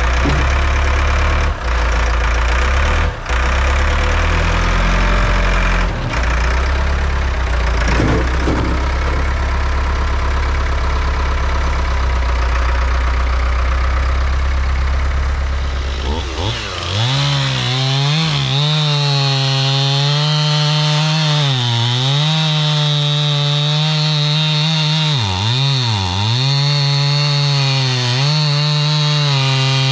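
STIHL two-stroke chainsaw bucking a large log. For about the first half the engine runs low and heavy under load in the cut. Then its pitch rises to a steady high whine, with a few short dips in engine speed near the end.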